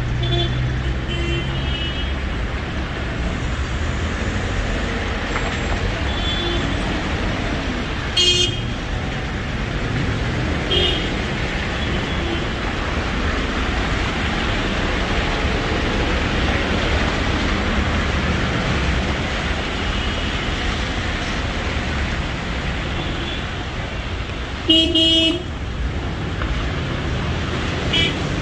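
City street traffic in heavy rain: a steady hiss of rain and passing cars, with car horns tooting repeatedly, the loudest a short blast near the end.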